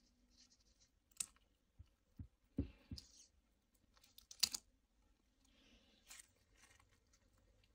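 Faint handling noise from a new screen adhesive sheet being peeled from its plastic liner and pressed onto a phone's metal midframe by gloved fingers: a few scattered clicks and taps with soft crinkling. The sharpest click comes about four and a half seconds in, with a little rustling after it.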